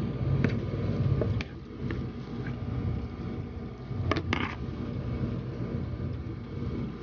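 Metal spoon stirring a thick ground-chicken mixture in a plastic basin, with a few short clicks of the spoon against the bowl, a close pair of them just after four seconds in, over a steady low hum.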